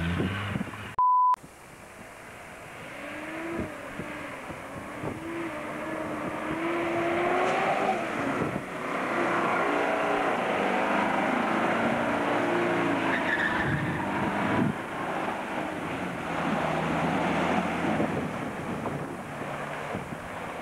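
Mitsubishi Pajero engine revving hard while the SUV churns through deep mud, wheels spinning and throwing mud; the engine note rises and falls. A short steady beep sounds about a second in.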